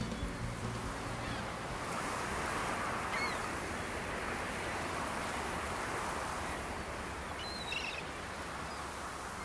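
Steady surf ambience: waves washing on a shore, with a couple of faint bird calls, one about three seconds in and another near the end.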